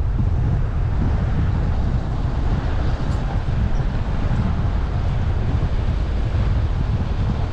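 Wind buffeting the microphone of a camera on a moving car, a steady low rumble over the car's road noise.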